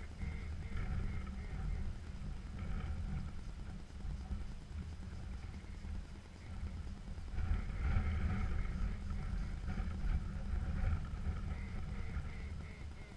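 A large flock of geese calling overhead, the chorus of calls swelling about seven seconds in, over a steady low rumble of wind on the microphone.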